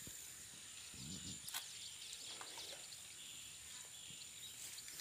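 Faint handling noise of a black plastic irrigation hose and a knife being worked by hand, with a sharp click about one and a half seconds in. A steady high-pitched drone sits in the background.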